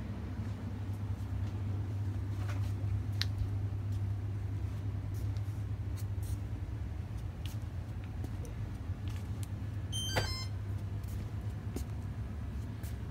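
Steady low electrical hum with a few faint clicks, and a short high electronic beep about ten seconds in.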